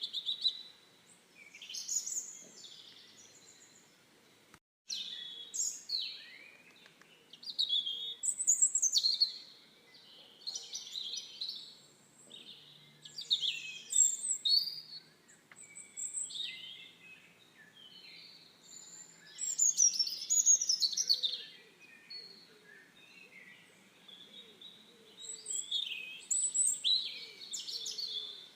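Songbirds singing, a series of short, varied high chirping phrases every second or two, with a brief break in the sound about five seconds in.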